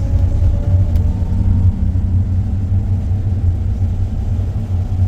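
Tour bus driving along, heard from inside the cabin: a steady low rumble of engine and road, with a faint thin whine above it.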